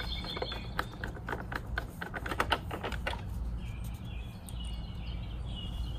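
Screwdriver driving small screws back into a plastic Subaru BRZ headlight housing: a quick run of sharp clicks and ticks during the first half. Short bird chirps follow in the second half.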